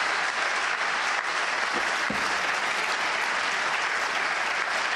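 Audience applauding: steady, dense clapping from a large crowd.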